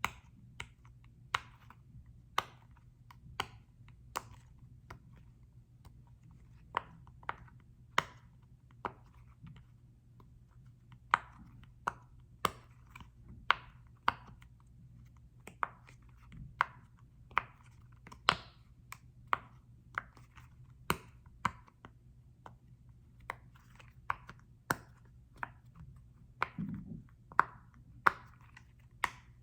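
Sharp, separate taps and clicks from fingers tapping and handling a small football-shaped object, about one every second or two and quickening near the end, over a faint steady low hum.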